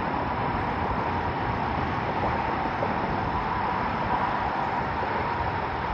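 Steady rushing noise that holds even throughout, with a faint steady whine running through it.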